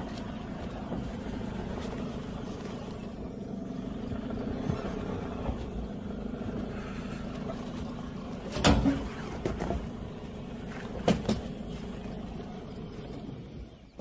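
Vehicle engine idling steadily, with two short, sharp loud sounds, one about eight and a half seconds in and another about eleven seconds in.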